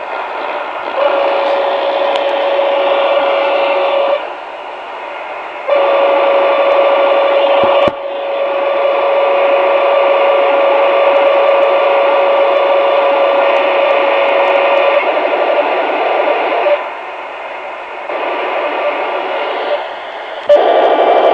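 Royce 639 CB radio's speaker putting out the digital hash of power-line communication (PLC) interference on channel 36: a dense buzzing noise laced with steady tones. It switches between louder and quieter stretches every few seconds, with a steady mid-pitched tone through the loud stretches.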